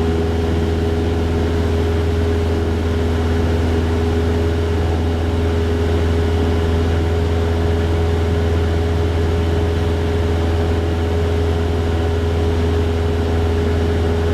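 Cessna 172's piston engine and propeller droning steadily in flight, a constant low hum with a steady higher tone above it.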